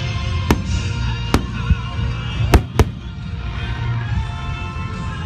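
Aerial fireworks shells bursting in five sharp bangs, the last two close together about two and a half seconds in, over music playing in the background.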